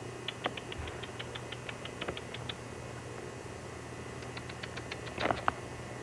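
A small animal chattering: two quick runs of short, sharp, high chirps, about seven a second, the second run ending in one louder call.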